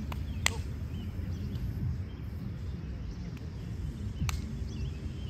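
Sharp smacks of a beach volleyball being hit, one about half a second in and a second, weaker one about four seconds in, over a steady low rumble.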